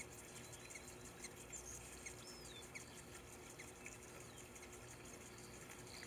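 Faint, scattered high squeaky chirps from hummingbirds bathing, over a low trickle of water in the bird bath.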